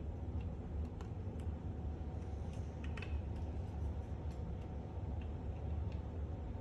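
Scattered light clicks and taps of plastic snap-fit model parts being handled and pressed together, over a steady low hum.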